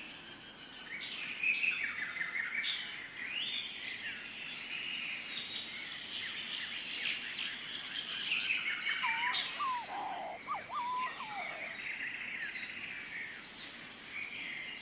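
Many birds chirping and calling over a steady high-pitched whine, with a few lower whistled calls between about nine and twelve seconds in.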